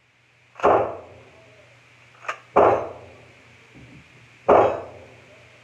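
Gunshots on an outdoor-covered shooting range: three loud shots about two seconds apart, each echoing briefly off the range roof, with a fainter crack just before the second.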